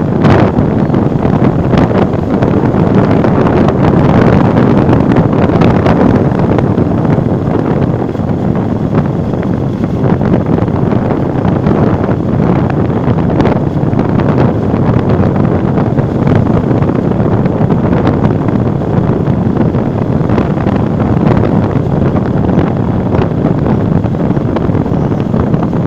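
Wind buffeting the microphone as a vehicle moves along a road, a loud steady rush with road and motor noise mixed underneath.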